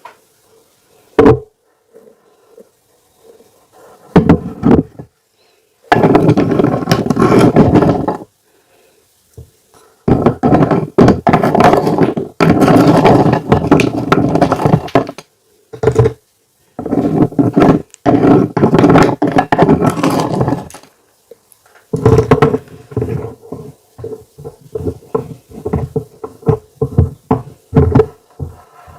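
Close-miked eating sounds of fufu being eaten: long, loud, noisy stretches with pauses between them, then a run of quick, wet mouth smacks in the last several seconds.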